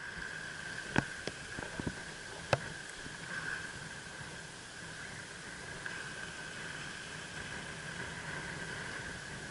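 Steady wash of wind and surf on the microphone, with a constant high hum and a few sharp clicks between about one and two and a half seconds in.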